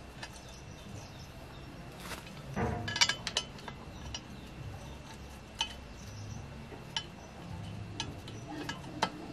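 Light metallic clinks of parts and tools being handled: a quick cluster about three seconds in, then single clinks about once a second in the second half, over a low steady hum.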